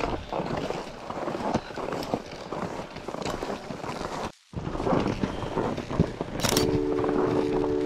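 Skis sliding and crunching over groomed snow with pole plants as skiers travel uphill, broken by a short gap about four seconds in. From about six and a half seconds, music with held, chime-like tones comes in.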